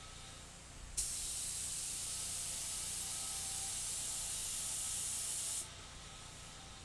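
Compressed-air paint spray gun spraying primer: a steady hiss that starts abruptly about a second in and cuts off about four and a half seconds later, over a low steady hum.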